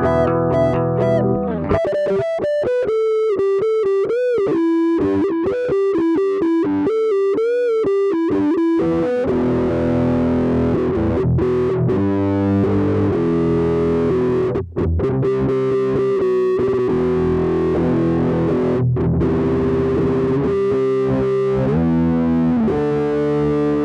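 Electric guitar music played through effects: a single-note lead line with wide vibrato, then held, distorted notes and chords from about nine seconds in, with a slide down near the end.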